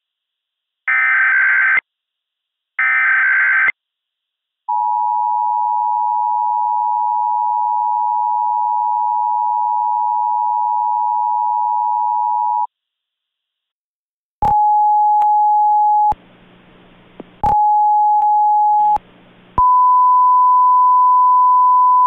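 Emergency Alert System SAME header: short bursts of shrill digital data warble, about a second apart, the first already under way. Then the eight-second two-tone EAS attention signal held steady. After a pause come two short steady tones with hiss between them, and a longer slightly higher steady tone near the end.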